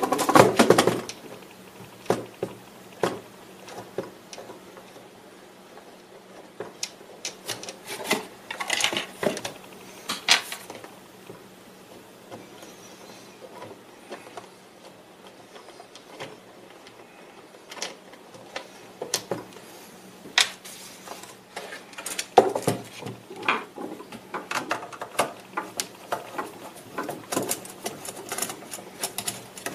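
Plastic speedometer cluster being taken apart by hand: scattered sharp clicks, taps and light rattles as bulb sockets are twisted out of its back and a screwdriver works its screws. The clicking comes in short busy runs, densest near the end.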